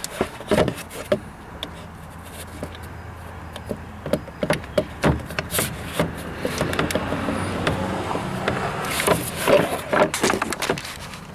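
Scattered clicks and knocks of plastic car parts being handled and pushed into place while the air intake hose is refitted, over a steady low hum that swells in the second half.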